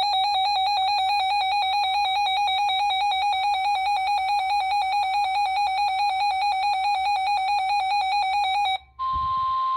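Weather alert radio's built-in electronic alarm: a harsh, rapidly warbling beep lasting nearly nine seconds, sounding as the radio receives a new severe thunderstorm warning. It cuts off, and after a click the steady, single-pitch NOAA Weather Radio warning alarm tone begins.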